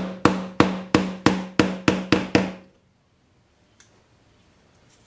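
Hammer blows, about three a second, driving a quarter-inch threaded insert into a plywood clamp head to seat it flush, with a steady ring under the strikes. The blows stop about two and a half seconds in, and a single faint click follows.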